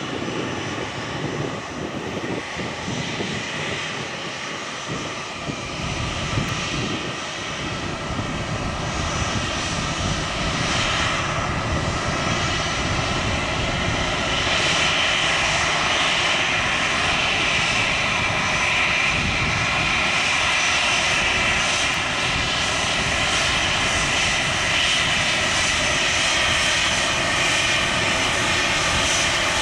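Airbus A320 jet engines running at taxi power: a steady jet whine over a rumble, growing louder over the first half as the airliner taxis closer, then holding.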